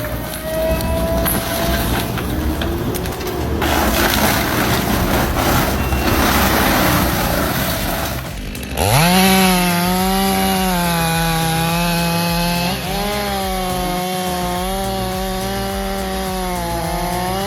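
A wood chipper grinding up wood with a dense, noisy clatter. About nine seconds in, a chainsaw revs up to full throttle and runs at a steady high engine note, dipping briefly a few seconds later.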